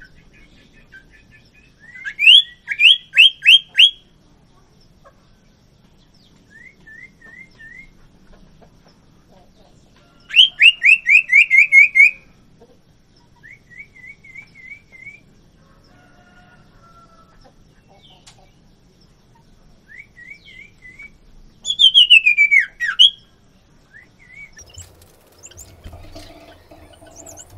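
A male and female sirtu (iora) calling in a cage: three loud bursts of rapid, repeated whistled notes, each lasting about two seconds, with softer short chirp series in between.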